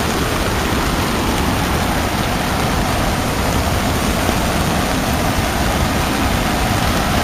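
Floodwater rushing over and along a paved road and cutting away its edge, a steady loud rush of water.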